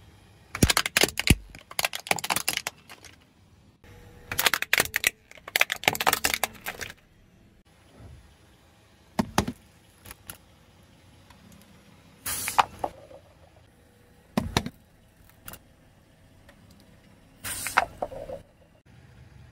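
Car tyre slowly rolling over and crushing plastic objects, a plastic toy and a plastic bottle, on asphalt. Two long runs of dense crackling and snapping plastic come first, then several single sharp cracks a couple of seconds apart.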